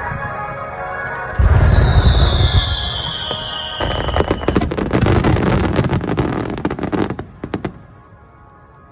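Fireworks display: a heavy boom about a second and a half in, with a high whistle falling in pitch, then several seconds of dense crackling that ends in a few last pops and dies away. Music plays under the opening.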